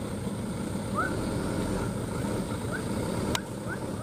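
Diesel engine of a small truck loaded with palm fruit, running low as it creeps over a rutted mud road. Short rising chirps repeat in the background, and there is one sharp click a little after three seconds in.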